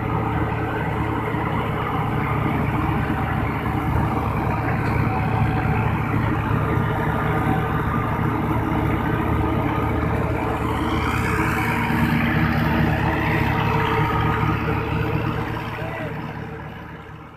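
Tractor engine running under load while driving a straw chopper that cuts straw and blows it into a trailer, a steady mechanical drone. It grows brighter and louder about two-thirds of the way through, then fades out at the end.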